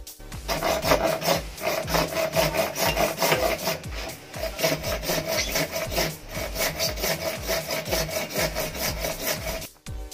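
Handsaw cutting through a piece of blue PVC in quick back-and-forth strokes, starting about half a second in and stopping just before the end.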